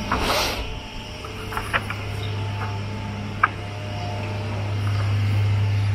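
A page of a large glossy coffee-table book turned by hand, a short papery swish just after the start, then a few small taps as the hand settles on the page, over a steady low hum.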